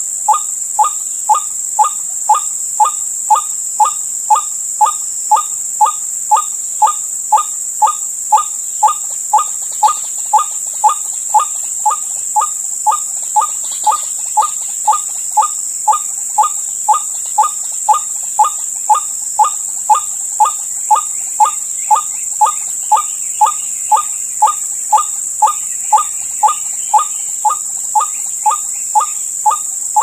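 White-breasted waterhen (ruak-ruak) used as a live decoy, calling a short falling note over and over at a very even pace, about one and a half times a second. A steady high insect drone runs underneath.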